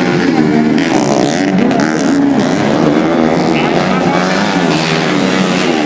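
Several dirt-bike engines racing past at close range, their pitch rising and falling as the riders rev through the bend, overlapping one another.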